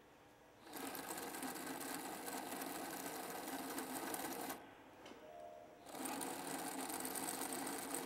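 Powered 56 mm acetabular reamer on the MAKO robotic arm, running as it grinds bone in the hip socket. It starts about a second in, stops for about a second after four and a half seconds, then starts again.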